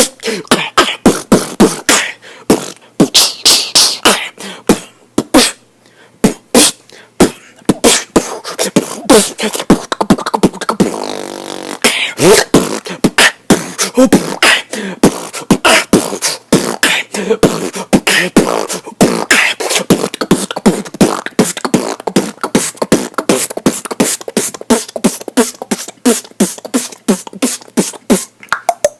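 A man beatboxing: fast percussive mouth sounds, kicks, snares and hi-hats, in a quick continuous rhythm, with a short buzzing, pitched vocal sound about eleven seconds in.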